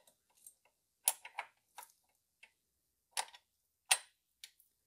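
Scattered short clicks and taps, about eight in all, as a camshaft locking tool is fitted onto the intake camshaft of a BMW N42 engine. The sharpest come about a second in and twice near the end.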